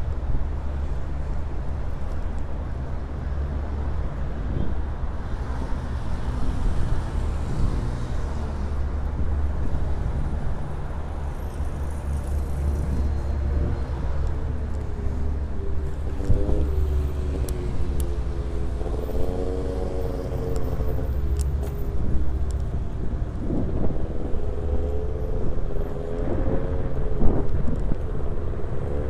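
Wind buffeting the microphone while moving along a road, over the rush of passing car traffic. In the second half, a wavering pitched tone comes and goes several times.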